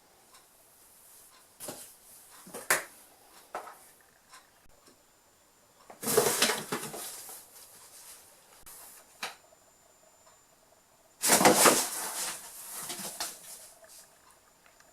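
Birman kittens scrabbling and landing on a cardboard box: a few light knocks, then two loud scraping rustles about five seconds apart, each lasting about a second.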